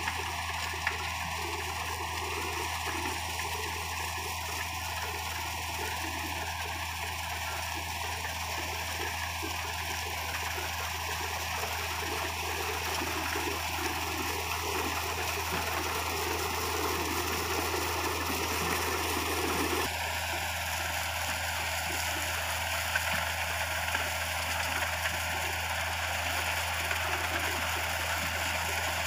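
Combine harvester running while cutting crop: a steady, dense mechanical noise over a constant low engine hum, with a flickering clatter in the low range that thins out about twenty seconds in. The uploader takes the sound for a loose feeder house chain.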